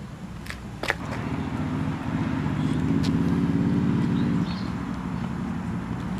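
A motor vehicle engine running with a low, rapid pulse, growing louder about a second in and easing off again about four seconds later. A couple of sharp clicks come near the start.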